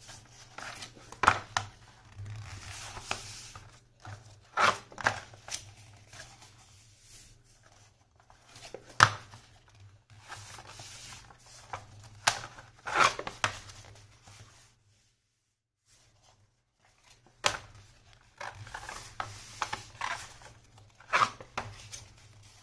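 Sheets of coloured paper rustling and crackling as they are folded into accordion pleats for a paper fan, with sharp crisp snaps as each crease is pressed down. The sounds come in irregular bursts, with a short quiet pause about two-thirds of the way in.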